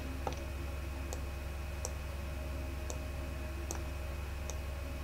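Computer mouse clicking as smear strokes are dragged in Blender: small sharp clicks at roughly one per second, over a steady low hum.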